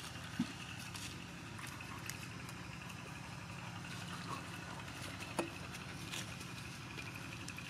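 Faint eating sounds over quiet outdoor background: soft chewing and a few light clicks, the clearest about half a second in and a little after five seconds.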